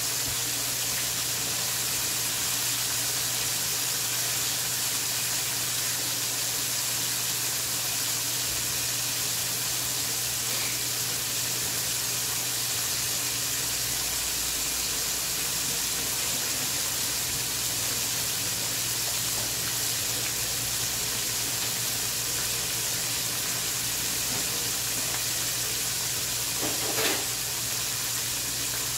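Battered chicken wings deep-frying in hot oil in a pan: a steady sizzle, with one brief louder sound near the end.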